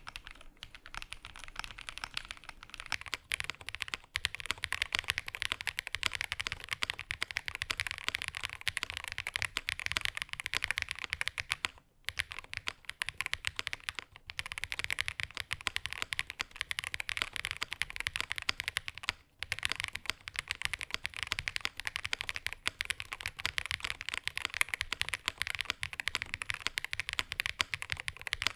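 Itou65 mechanical keyboard, an aluminium case with an FR4 plate and linear switches, typed on rapidly and continuously with its PE foam left out. Brief pauses in the typing come about 12 and 19 seconds in.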